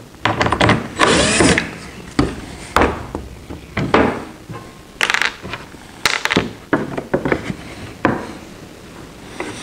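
Cordless drill running briefly to back a screw out of a wooden board, then a series of scattered knocks and clicks as the drill is set down, a screw is pulled out by hand and the wooden blanks are shifted on the saw table.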